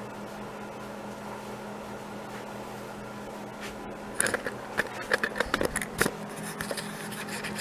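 Camera handling noise: from about four seconds in, a run of rubs, clicks and knocks as the camera is picked up and moved close. Beneath it a steady low hum.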